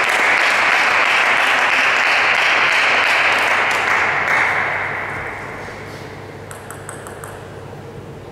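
Spectators applauding a won point, steady at first, then dying away about five seconds in.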